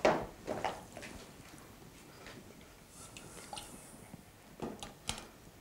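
Light kitchen handling sounds: a spoon stirring batter in a plastic mixing bowl, and a few soft knocks and clinks of dishes and utensils, the loudest right at the start.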